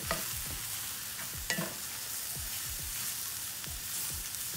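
Sliced mushrooms sizzling in oil in a cast-iron skillet while a wooden spoon stirs them. Two sharp knocks of the spoon against the pan come about a second and a half apart.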